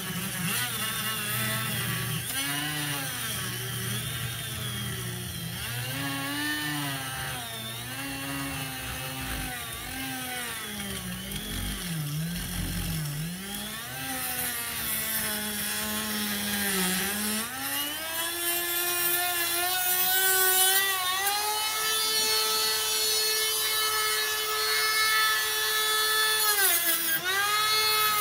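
Dremel rotary tool with a cutoff wheel cutting into the seized forward/reverse selector handle of a Club Car DS golf cart. Its motor whine sags and recovers in pitch over and over as the wheel bites, then runs steadier and higher from a little past halfway, dipping briefly near the end.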